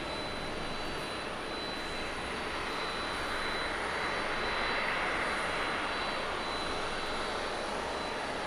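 Jet engines of a Boeing 737-800 (CFM56-7B turbofans) rolling along the runway after landing: a steady jet rush that swells a little around the middle.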